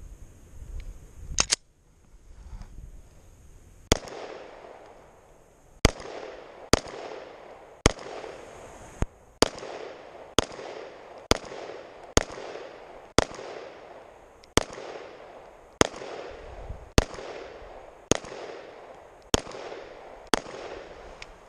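Two quick clicks about a second and a half in, then a Glock 19 9mm pistol fired about sixteen times at a slow, steady pace of roughly one shot a second, each shot trailed by an echo.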